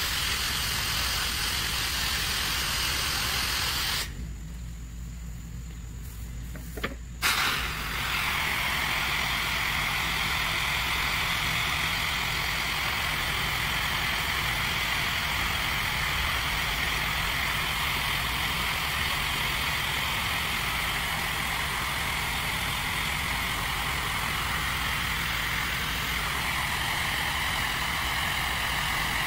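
Pressure washer with a jetter attachment shooting a high-pressure jet of water up into the gutters: a loud steady hiss that stops for about three seconds around four seconds in, then comes back with a brief sharp burst. A steady low engine hum runs underneath throughout.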